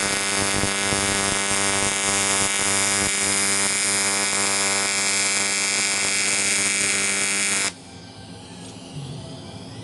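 AC TIG welding arc on aluminium giving a loud, steady electric buzz with a hiss on top as a full bead is run around the side stand's tube joint. The arc cuts off suddenly a little under eight seconds in.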